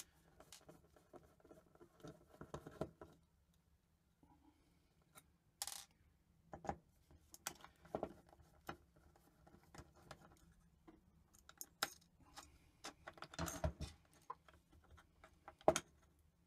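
Scattered small metallic clicks, clinks and short scrapes from a screwdriver working on an opened hard drive's read/write head assembly while its metal parts are handled, with a brief hissy scrape about six seconds in and the loudest clicks near the end.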